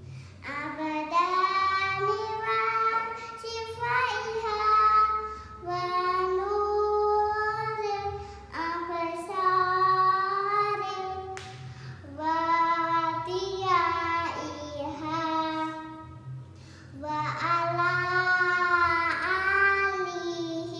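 A young girl singing sholawat, an Islamic devotional song, solo, in long melodic phrases with held, wavering notes and short pauses for breath between them.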